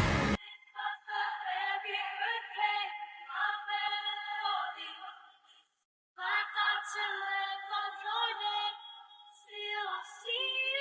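Isolated pop vocals with the backing track stripped out: a woman's voice with layered harmonies holding long, wordless notes. The singing thins and breaks off briefly about six seconds in, then resumes.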